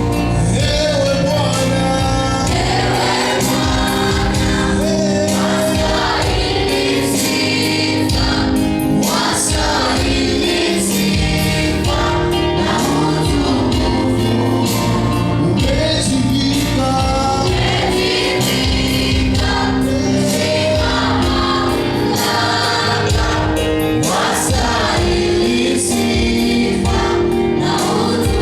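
A choir singing a gospel song in several parts at once, over a steady low bass line.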